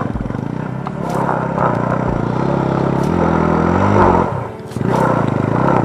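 Small commuter motorcycle engine revving hard as it struggles up a steep slope of loose gravel, its rear wheel spinning and throwing stones that click and scrape. The engine note climbs about three seconds in, sags briefly just past four seconds, then picks up again.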